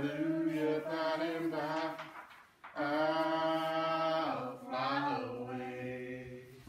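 A woman singing solo and unaccompanied into a microphone: phrases of a slow hymn-like melody with long, wavering held notes and a short breath break about two and a half seconds in, fading out near the end.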